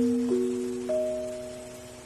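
Casio LK-41 electronic keyboard playing notes with a soft, fading tone: a low note and a middle note struck just before, with two more notes entering about a third of a second and about a second in, all decaying slowly.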